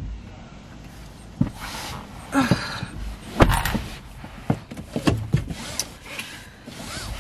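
Someone getting into a car's driver's seat: several thumps and rustles of clothing and seat, the loudest about three and a half seconds in, then the seatbelt drawn across near the end.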